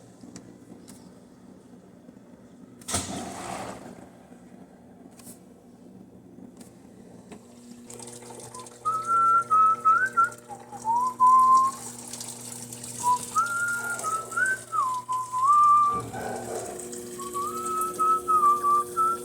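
A person whistling a tune in short phrases, starting about nine seconds in, over a steady hum that sets in a little before it. A brief rushing burst comes about three seconds in.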